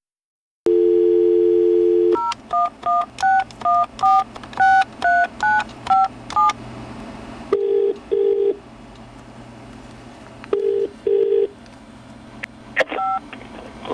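Telephone call being placed: a steady dial tone, then about eleven touch-tone digits dialed in quick succession, then two rounds of double-pulse ringback as the line rings at the other end. A couple of clicks near the end.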